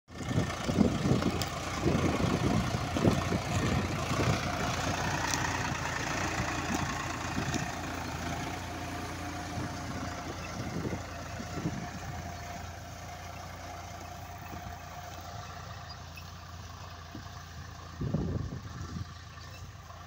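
Agri King AK-T54 tractor's diesel engine running steadily under load as it pulls a disc plough through the soil. It is loudest at first and grows steadily fainter as the tractor moves away.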